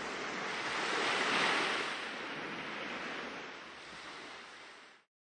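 A whooshing rush of noise, like wind or surf, that swells to its loudest about a second and a half in, then slowly fades and cuts off abruptly near the end: the sound effect of a logo sting.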